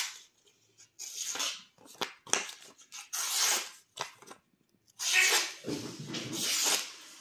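Steel blade of a Due Buoi 231 slip-joint knife slicing through a sheet of paper: about five short papery hisses, one per cut, with paper rustling between them.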